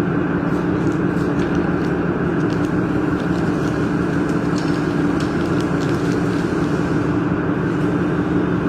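Steady mechanical drone with two low hum tones and a few faint ticks, like machinery or fans running.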